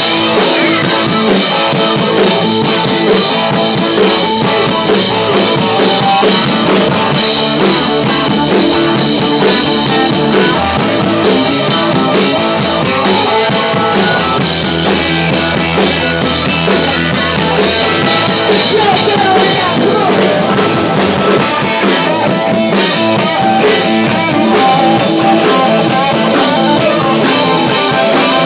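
Live rock band playing loud, with electric guitar over a drum kit.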